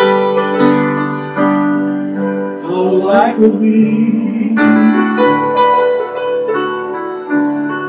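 Piano playing sustained chords that change every second or two, with a brief wordless vocal slide about three seconds in.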